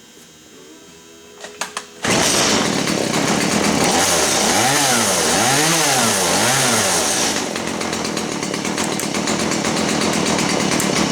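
A chainsaw starts suddenly after a couple of seconds of quiet with a few clicks, then runs loudly, its pitch rising and falling in three swells around the middle.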